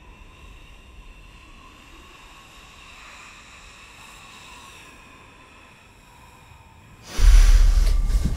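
A faint steady drone, then about seven seconds in a sudden loud rushing noise with a deep rumble that slowly fades.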